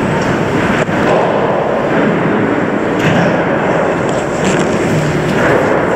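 Steady hiss of room noise in a church sanctuary, with a single short click just under a second in.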